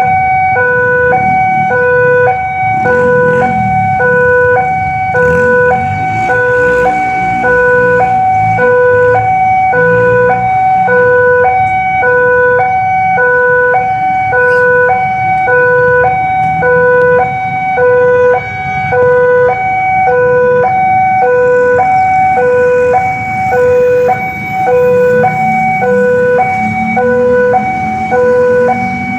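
Railway level crossing warning alarm sounding: an electronic two-tone signal alternating steadily between a low and a high tone, signalling that a train is approaching with the barrier down. Road vehicle engines rumble underneath.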